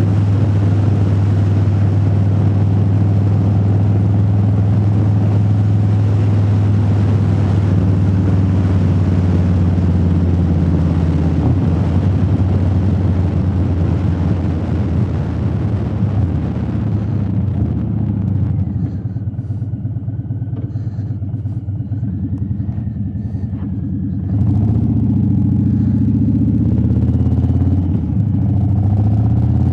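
Motorcycle engine and wind noise heard from inside the rider's helmet, cruising steadily. About eighteen seconds in the bike slows and the wind rush falls away, and about six seconds later it picks up speed again.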